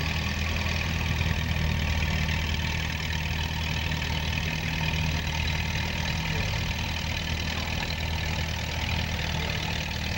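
1952 Minneapolis-Moline tractor's engine idling steadily while hitched to the pulling sled, before its pull.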